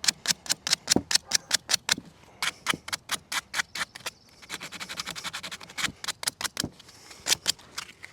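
Sandpaper scrubbing a corroded positive battery terminal in quick back-and-forth strokes, about four to five a second, with a short pause about four seconds in. The corrosion is being sanded off for a cleaner connection.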